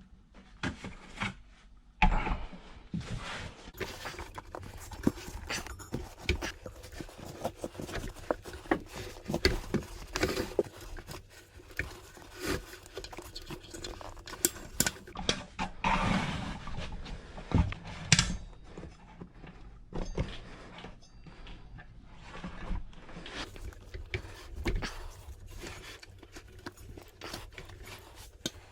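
Irregular metallic knocks and scrapes of tire levers working a motorcycle rear tire's bead over the wheel rim, with a man breathing hard from the effort.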